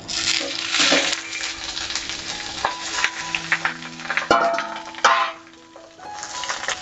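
Oil sizzling on a hot tawa as banana-leaf-wrapped fish parcels are set down on it, with light taps and scrapes of leaf and fingers against the pan. The sizzle dies down briefly about five seconds in, then picks up again.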